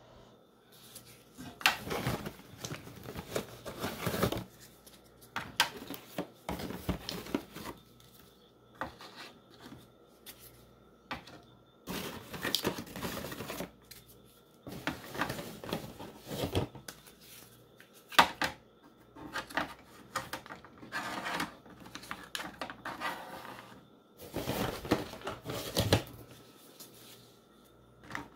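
Single-serve plastic coffee pods being handled and set into a pull-out storage drawer: irregular clicks and clatter with short stretches of rustling.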